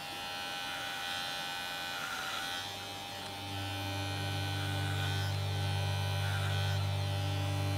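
Kemei electric hair clipper buzzing steadily as it shaves a dog's wet, matted fur. Its low hum grows louder about three and a half seconds in.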